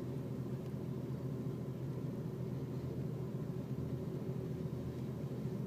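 Freight train rolling past a level crossing: a steady low rumble of the cars and wheels on the rails, heard muffled from inside a car.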